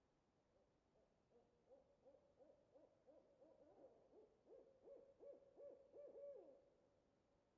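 An owl calling: a rapid series of short hoots, about three a second, each dropping in pitch. The hoots grow louder, then stop about a second before the end.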